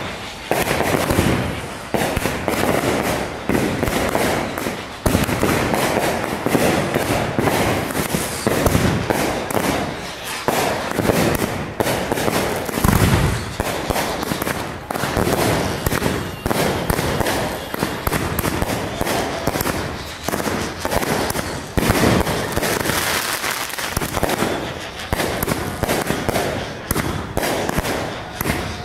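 Fireworks going off nonstop: a dense, unbroken string of sharp bangs, pops and crackles, with no pause.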